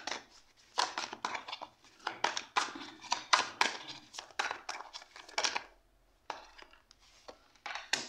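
Oversized tarot cards being shuffled by hand: a fast run of papery riffles and slaps for about five seconds, then a few faint taps, and a card set down sharply on the wooden table near the end.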